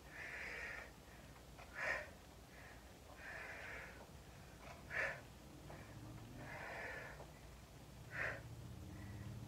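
A person's breathing through barbell front squat reps: a drawn-out breath followed by a short, sharp puff of breath, repeating about every three seconds, three times.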